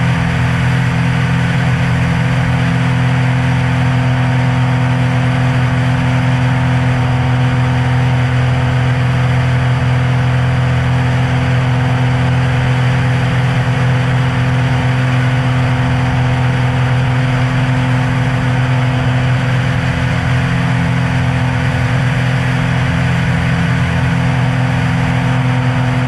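Cessna Hawk XP II's six-cylinder engine and propeller running steadily in level flight, a constant pitched drone that does not change.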